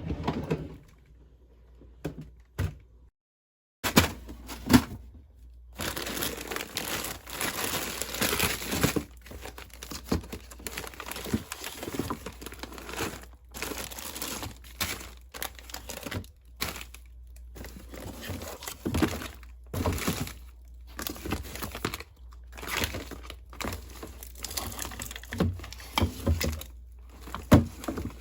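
Plastic bags and food packaging crinkling and rustling, with small knocks and clicks, as groceries are handled. A low steady hum lies underneath from about four seconds in.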